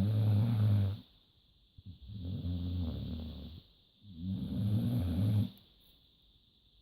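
Hungarian Vizsla snoring in deep sleep: three long, low snores about two seconds apart, the first already under way at the start.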